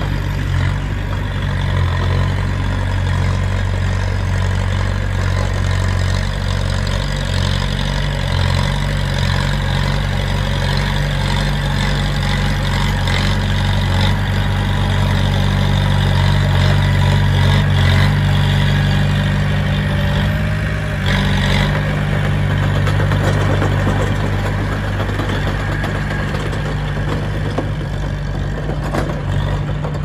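Heavy earthmoving machine's diesel engine running steadily, with a few faint clanks.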